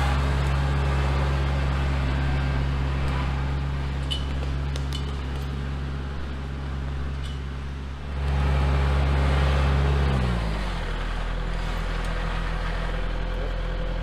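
Kubota L4701 compact tractor's diesel engine running at a steady speed. It grows louder for about two seconds past the middle, then its pitch drops as the engine slows to a lower idle about ten seconds in.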